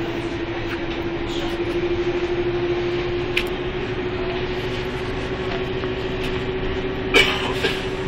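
Karosa B931 city bus driving, heard from inside the cabin: a steady running noise with a tone that rises slowly in pitch as the bus gathers speed. Short clatters from the bus body cut in twice, the loudest about seven seconds in.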